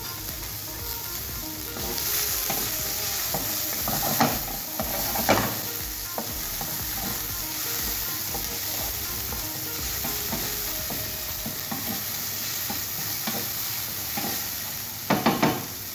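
Chopped onions sizzling in hot oil in a stainless steel pan, stirred with a wooden spatula that scrapes and knocks against the pan. The sizzle grows louder about two seconds in, and a few sharper knocks of the spatula come near the end.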